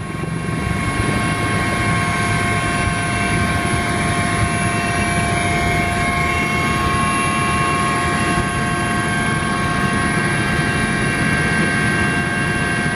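Helicopter running: a loud, steady rush of rotor and engine noise with a steady high whine over it.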